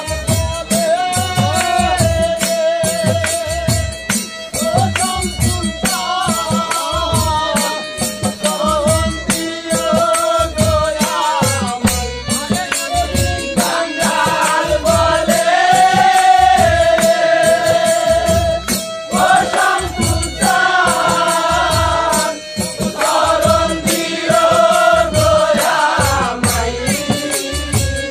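Group of men singing a Bengali bicched folk song in unison, the melody held in long wavering lines, over a steady low beat with rattling percussion.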